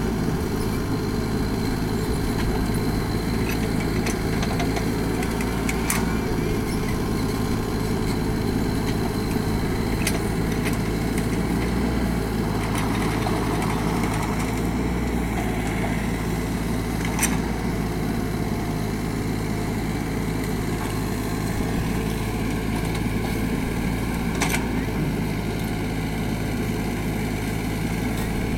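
Mini excavator's diesel engine running steadily while it digs into hard laterite soil, with a few sharp knocks spread across the stretch.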